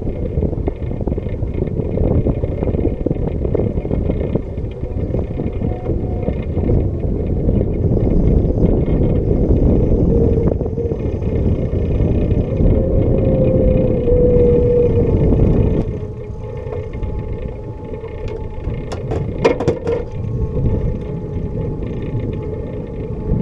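Wind buffeting the microphone over the steady noise of a boat's outboard motor running while trolling. The noise drops about two-thirds of the way through, and a few sharp clicks and knocks follow.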